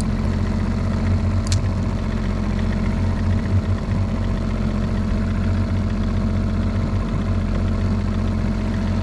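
Small fishing boat's engine idling, a steady low hum that does not change in pitch.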